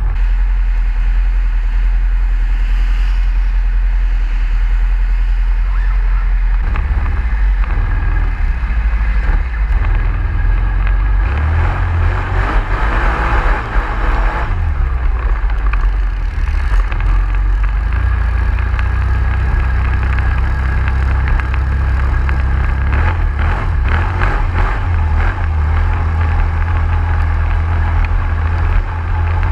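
ATV engine running, with a continuous low rumble that shifts in strength several times and no break throughout.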